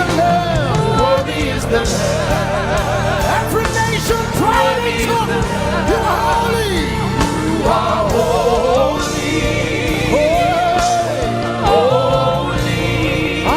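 Live gospel worship music: singers holding wavering, vibrato-laden lines over a band with a steady low bass.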